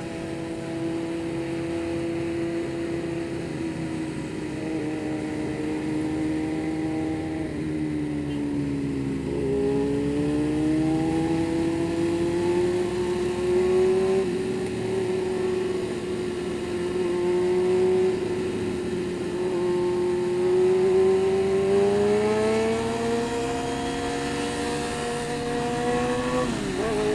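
Motorcycle engine running while riding along. Its pitch dips and recovers about a third of the way in and rises again near the end as the throttle changes.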